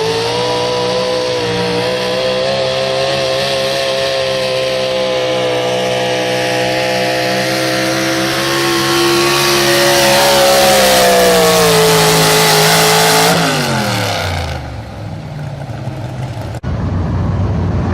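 Super Stock 4x4 pulling truck's engine running at high revs under load during a pull, its pitch climbing a little and loudest about ten seconds in. About thirteen seconds in the engine is let off and its pitch falls away steeply, with a sharp click a few seconds later.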